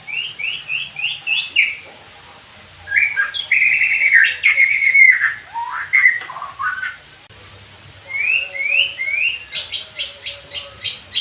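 White-rumped shama (murai batu) singing: a run of short rising whistles, then a long varied warbling phrase with falling notes, then more rising whistles and, near the end, a fast string of sharp high notes.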